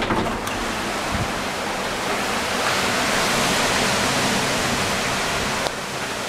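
Torrential rain pouring down in a cloudburst, a steady loud hiss that swells in the middle and dips briefly near the end.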